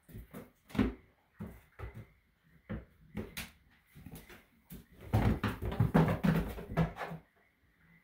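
Baby goats' hooves knocking and scrabbling on the top of a plastic crate: separate sharp knocks at first, then a dense run of scrambling clatter about five seconds in that lasts roughly two seconds.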